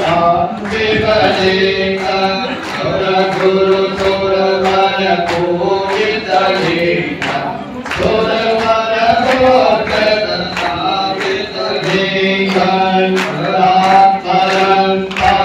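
Several voices chanting a Hindu devotional hymn together, in a steady line of held notes that step up and down.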